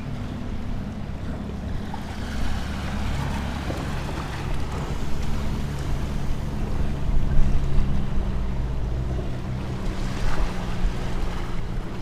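Small sea waves washing in over rocks and stones at the water's edge, swelling twice, with wind rumbling on the microphone.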